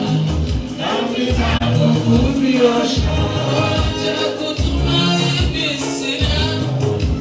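Live gospel praise-and-worship music: singers over a band with a strong, rhythmic bass line.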